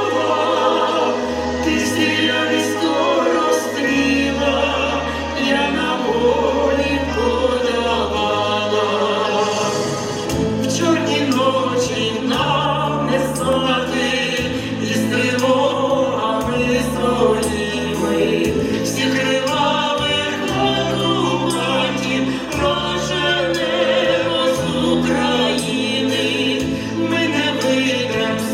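Music: the band accompaniment of a Ukrainian song, with a moving bass line and drums, and singing over it.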